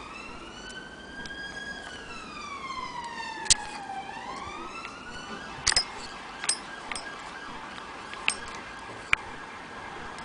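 A siren wailing, its pitch rising and falling slowly, with several sharp clicks over it from about a third of the way in.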